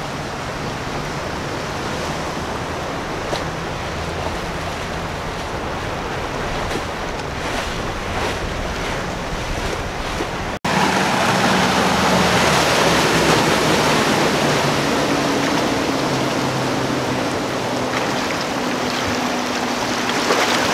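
Outboard engines of center-console fishing boats running through an inlet, under the rush of wake and surf and wind on the microphone. About halfway through the sound cuts and jumps louder, with a steady engine drone that falls slightly in pitch.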